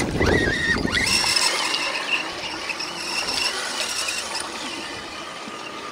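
High-pitched whine of a 1/10-scale RC truck's electric motor and gears under load as it churns through deep mud, sliding in pitch with the throttle at first and then holding steadier. A brief low rumble comes in the first second.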